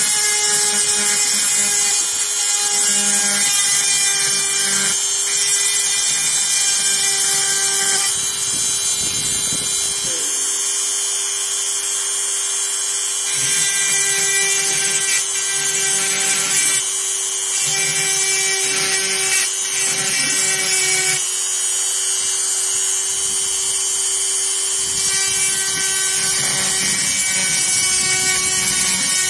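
Handheld electric rotary engraver running steadily while its fine bit engraves a titanium block: a constant motor whine over a high-pitched grinding hiss, with the lower sound shifting every few seconds as the bit works the metal.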